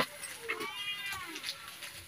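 A sharp click at the very start, then an animal's call about half a second in, rising and then falling in pitch and lasting under a second.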